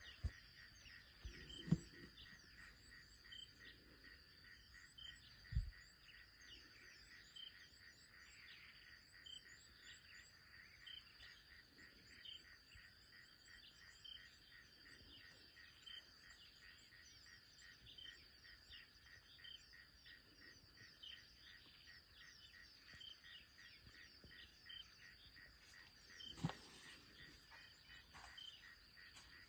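Faint insect chorus: a steady high trill with short chirps repeating about every half second to second. A few brief low thumps stand out, twice in the first two seconds, once more a few seconds in and once near the end.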